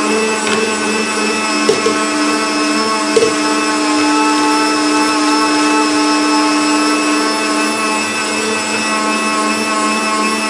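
Electric meat grinder running steadily while grinding garlic cloves, its motor giving a steady hum. A few brief knocks sound in the first three seconds.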